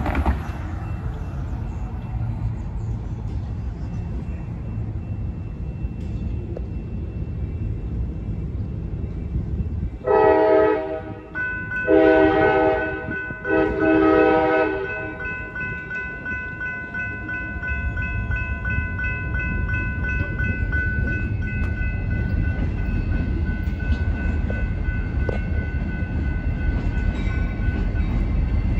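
Diesel locomotive air horn sounding three blasts about ten seconds in, over a steady low rumble. Fainter steady tones hang on for several seconds after the blasts, and the rumble grows near the end as a diesel locomotive approaches.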